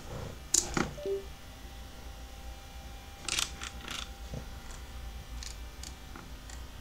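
Sharp clicks and taps from handling a Flipper Zero and its USB cable, with a brief falling two-note electronic beep just after a second in. Another cluster of clicks and a dull thump come around the middle, over a faint steady low hum.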